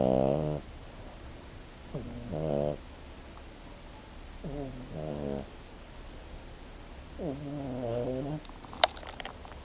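French Bulldog puppy, five months old, snoring in slow, regular breaths, one snore about every two and a half seconds. A single sharp click sounds near the end.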